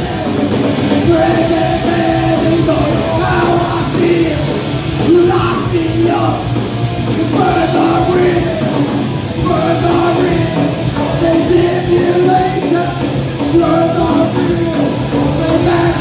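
Live punk rock band playing: electric guitars and drums.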